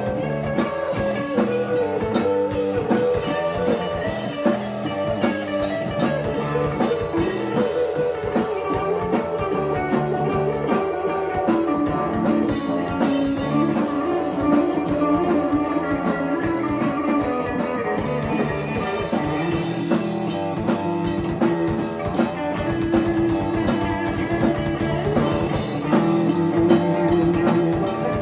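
A live rock band playing an instrumental jam: electric guitar, bass guitar and drum kit together, steady and continuous.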